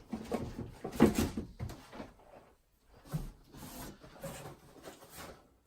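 Cardboard shoe boxes being handled and opened: a series of brief rustles and knocks, loudest about a second in and again in a cluster from about three to five seconds in.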